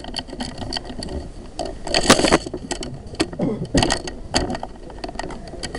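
Airsoft electric guns firing single shots and short bursts: sharp, irregular clicks, with a denser rattle of shots about two seconds in.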